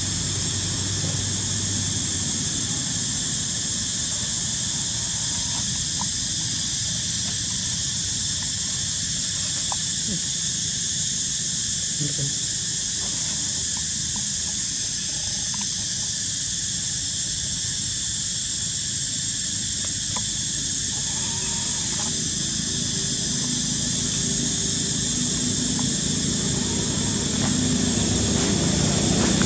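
A steady, high-pitched insect drone that never breaks, with a fainter band below it and a low rumble underneath, and a few faint ticks.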